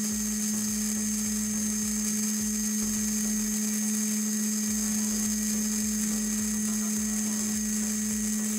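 Small yellow plastic-geared DC hobby motor, the wheeled robot-car type, running at a steady speed with an even, single-pitched whine.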